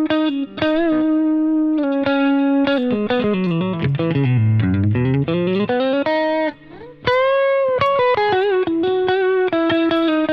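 Electric guitar played through a Fender Tone Master Pro modeler with a lightly gritty overdrive, playing sustained single-note lead lines with string bends and vibrato. In the middle there is a quick run down and back up.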